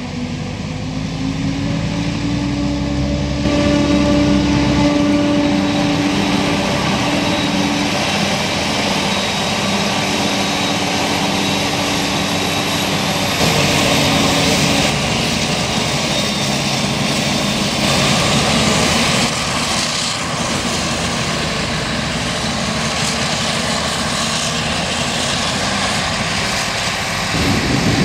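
Claas Jaguar 980 self-propelled forage harvester chopping maize under load: a steady heavy engine drone with the rushing of the chopper and of the chopped crop blown through the spout, together with the Fendt 820 Vario tractor running alongside with the dumper. The pitch and loudness shift about 13 seconds in and again near the end.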